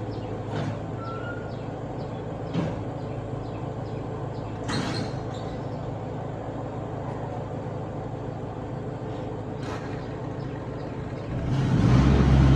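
An engine running steadily with a low hum, with a few short knocks, growing louder near the end.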